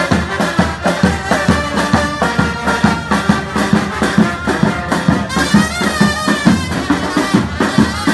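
Festive band music: brass instruments playing a melody over a steady drum beat.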